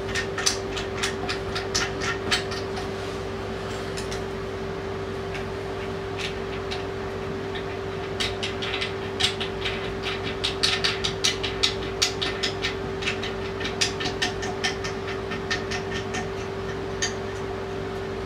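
Light clicks and knocks of hands working the plastic fittings and hose connections of a non-electric bidet seat at the back of a toilet, in clusters near the start and from about eight to fifteen seconds in. A steady hum runs underneath.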